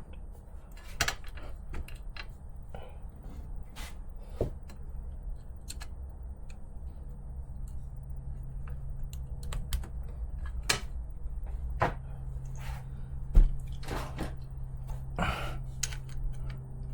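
Small parts and tools being handled during hands-on assembly of an RC car: scattered light clicks, taps and knocks, a few sharper than the rest. A low steady hum comes in about halfway through.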